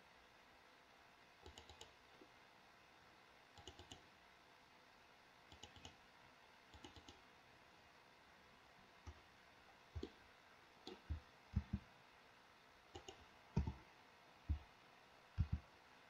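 Computer mouse and keyboard clicks: first a few faint little clusters of quick ticks, then louder single and paired clicks from about halfway on.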